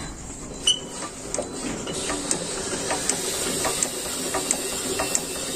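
Single-cylinder Yanmar diesel being turned over without firing, the injector line loosened to bleed air from the fuel system, with light ticks repeating about every 0.7 s. The engine would not start because air had got into the fuel (masuk angin).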